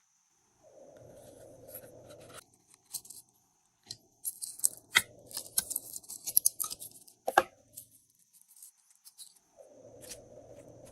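Glossy slime being squished and stretched by hand, a dense run of sticky crackling and popping clicks in the middle. A low steady hum is heard at the start and again near the end.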